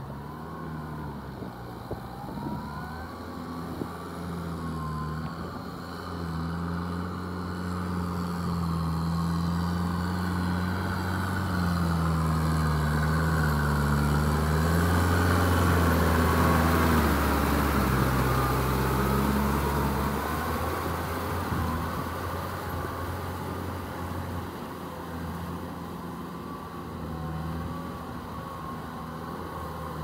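Kubota M6240SU tractor's diesel engine running steadily under load while working a flooded rice paddy. It grows louder as the tractor passes close about halfway through, then fades as it moves away.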